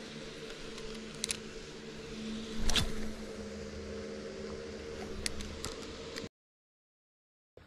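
Spinning reel being cranked on a retrieve, a steady whir with a few sharp handling clicks and a louder bump near the middle. The sound cuts off abruptly about six seconds in.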